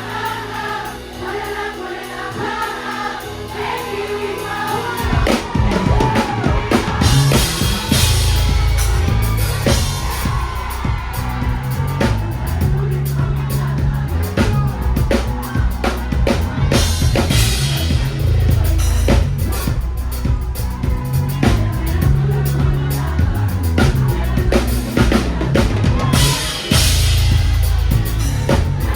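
Live gospel worship music: a choir sings over sustained chords, then about five seconds in a drum kit and a heavy bass line come in and the full band plays on.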